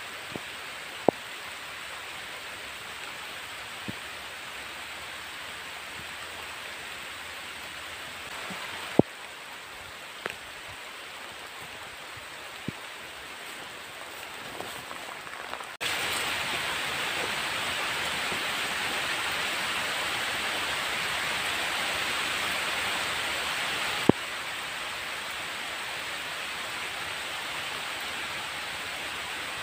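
Heavy rain falling on open water and grass: a steady hiss, louder for several seconds past the middle, with a few sharp clicks.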